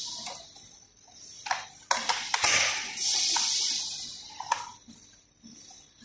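Plastic clicks and scraping as a robot vacuum's roller brush and brush cover are fitted back into place: several sharp clicks, with a longer scraping sound about halfway through.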